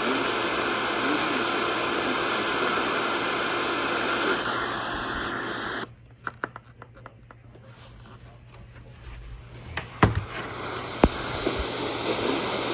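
Heavy static hiss from a weakly received radio broadcast, with a faint voice under it. About halfway through the hiss drops out to a quieter stretch with scattered clicks. Two sharp clicks come near the end, then the static returns.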